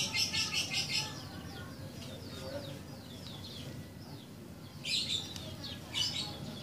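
Small birds chirping: many short, quick, falling high notes, with a rapid trill in the first second and two shorter trills around five and six seconds in, over a steady low background rumble.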